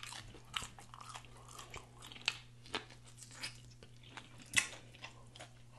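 A person chewing and smacking their lips while eating, with irregular sharp wet clicks. The loudest is a crisp bite about four and a half seconds in, as a pickled pepper is bitten into.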